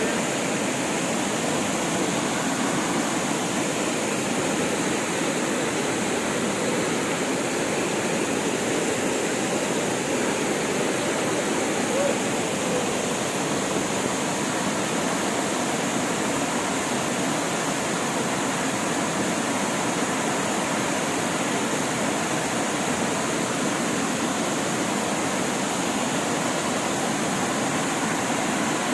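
Waterfall running with heavy rainy-season flow: a steady, unbroken rush of falling water.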